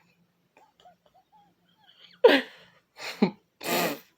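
Faint short vocal sounds, then three short, loud vocal outbursts in quick succession, the first falling sharply in pitch.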